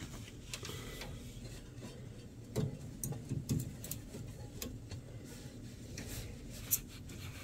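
Hands handling wiring and connectors at a furnace control board: faint rubbing with a few scattered small clicks of wire and plastic.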